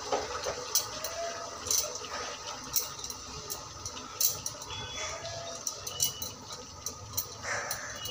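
Spatula stirring chopped spring onions in a pressure cooker pot: irregular clicks and scrapes of the spatula against the metal pot over a soft rustle of the greens.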